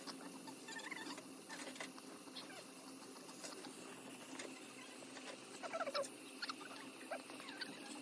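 Newborn baby making a few faint, short squeaky whimpers, clustered about six seconds in and once more near the end, over a low steady hum and light rustling.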